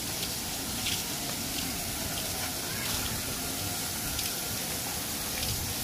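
Water spraying and splashing from a splash-pad play structure, a steady rush of noise.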